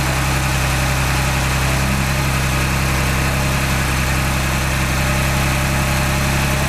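2021 Ford Bronco First Edition's 2.7-litre twin-turbo V6 idling steadily, just started.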